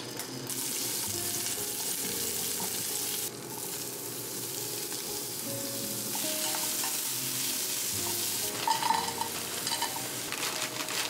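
Mushrooms and broccoli frying in oil in a frying pan, sizzling steadily, with a short break about three seconds in. Clicks and rattles near the end as more vegetables go into the pan.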